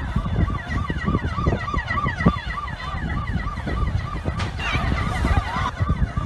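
A fast, repeating electronic alarm tone pulsing about three times a second, each pulse a short rise-and-fall, over a heavy low rumble. A brief louder burst comes about four and a half seconds in.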